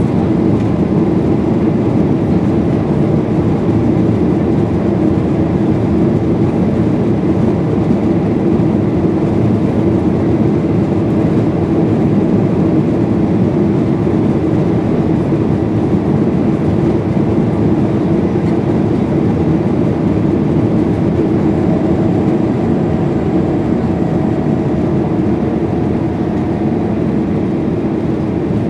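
Steady cabin noise of a Boeing 737-800 in flight: its CFM56 turbofan engines and the airflow past the fuselage, a loud, even rumble heard from a window seat. A faint steady tone joins it in the last third.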